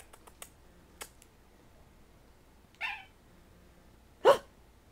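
Jack Russell terrier mix giving two short, high-pitched yips: a softer one a little before three seconds in and a loud one near the end.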